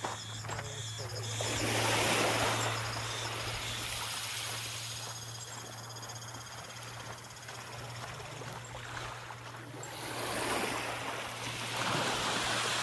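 Small waves washing up on the beach, with one surge about two seconds in and another building from about ten seconds. A steady low hum sits underneath, and faint high insect trills come through between the waves.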